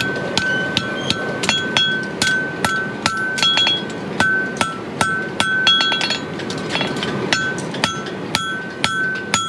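Farrier's hand hammer striking a hot steel horseshoe, held in tongs on an anvil, to shape a bar shoe: a quick, slightly uneven run of blows, about three a second, each with a bright metallic ring from the anvil.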